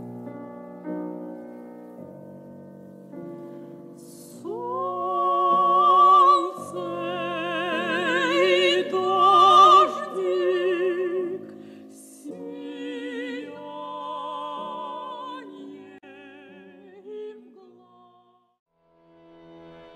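Classical-style background music: piano chords, then from about four seconds in a singing voice holding long notes with wide vibrato, in an operatic style. It fades out near the end.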